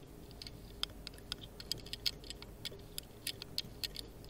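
Small, sharp metallic clicks and ticks, irregular at several a second, from a dimple lock pick and tension tool working the top dimple pins of a MIWA 3800 lock.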